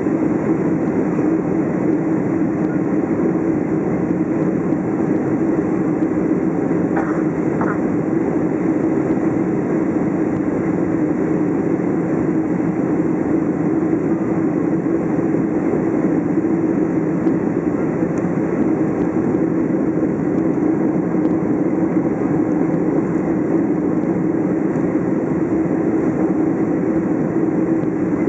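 Steady cabin noise inside a Boeing 767 on its approach, heard from a window seat over the wing: the even drone of the engines and rushing airflow, with a strong low hum.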